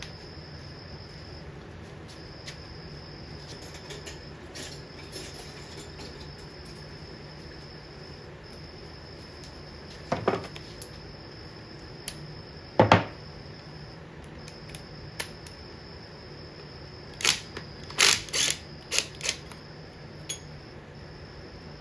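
Sharp knocks and clicks from hand work on an outboard engine as the ignition cover is being taken off: two single knocks midway, then a quick run of them near the end. Crickets chirp steadily underneath.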